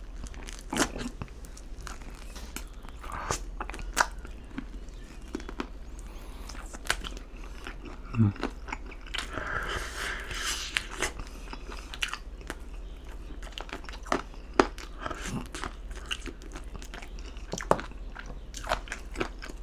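Close-up eating of buffalo wings: wet chewing and smacking with irregular sharp bite clicks, as meat is pulled off the bone.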